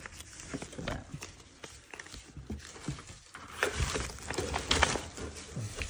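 Irregular rustling, tapping and knocking of paper and cardboard: a greeting card being pulled from its envelope while a spider monkey moves about in a cardboard shipping box.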